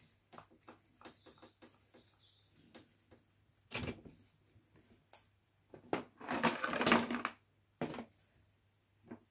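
Small clicks and metallic clatters of a carburettor body and parts being handled on a workbench, with a louder rattling clatter about six to seven seconds in.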